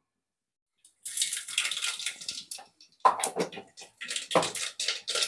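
Tempering seeds (mustard seeds, cumin, urad dal and chana dal) sizzling and crackling in hot oil. The sizzle starts about a second in, with louder crackles about three and four seconds in.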